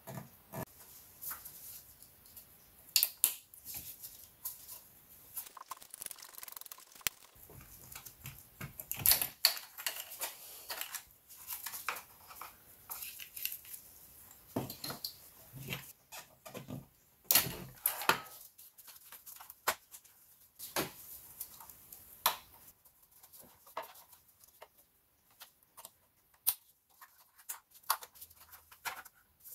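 Irregular clicks, taps and rustling from plastic electrical connectors and a wiring harness being unclipped and moved by hand in a car engine bay, with a few sharp clicks standing out among quieter handling noise.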